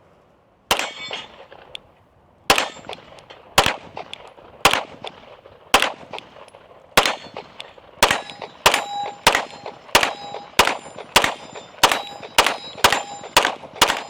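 Staccato P 9mm pistol fired about seventeen times: five deliberate shots about a second apart, then a faster string of roughly two shots a second. A metallic ring follows many of the shots.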